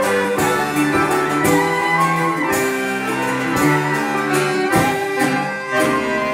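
A small folk band playing: accordion and violin hold melody notes over a band backing, with a sharp beat about once a second.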